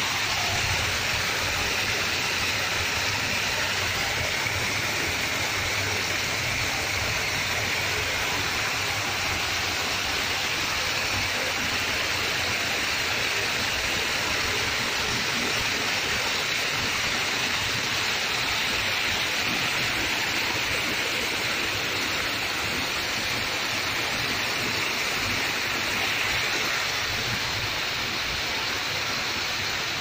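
Water spilling over the crest of a small concrete stream check dam and falling in a thin sheet, a steady rushing noise heard close up.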